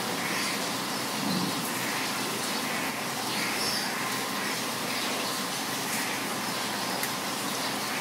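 Heavy rain falling steadily, with birds chirping now and then through it.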